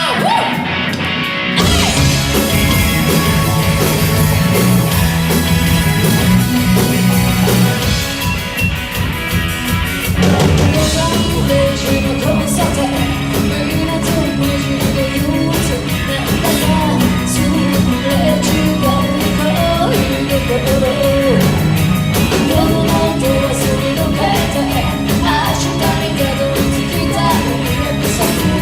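A live rock band playing: the full band with drums and bass comes in about a second and a half in, and a singing voice joins about ten seconds in.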